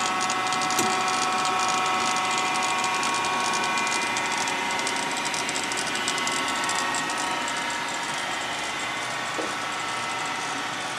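Sharp 8x20 automatic cylindrical grinder running under power: a steady whine of several tones with a fine rapid ticking on top. The ticking fades somewhat in the second half.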